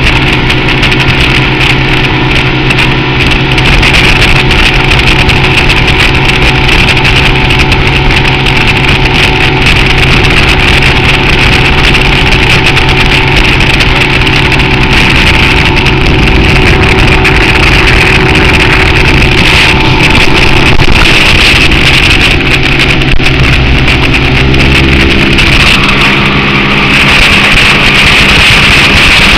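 Johnson 150 outboard motor running at speed, with the rush of the wake and spray. The engine's note changes near the end.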